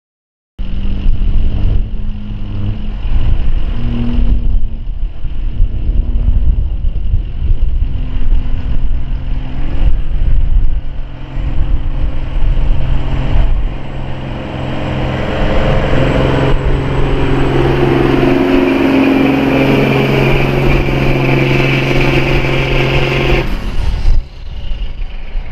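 Semi truck's diesel engine working hard under full load as it pulls a weighted sled down the track, loud and steady with the load building. Near the end the engine sound drops away suddenly.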